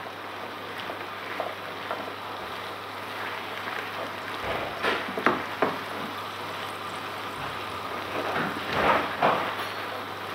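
Chopped courgettes frying in a hot pan of onion-tomato masala with a steady sizzle while they are stirred in with a wooden spatula. Louder bursts of sizzling and scraping come about five seconds in and again near nine seconds.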